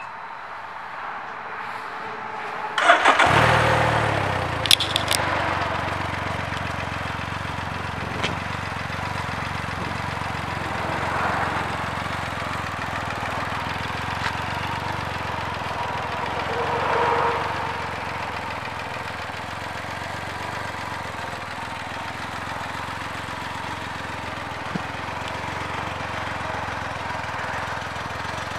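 Can-Am Ryker 900 ACE's Rotax three-cylinder engine started: a short loud burst about three seconds in as it cranks and catches, then idling steadily. The engine sound rises briefly twice, around eleven and seventeen seconds in.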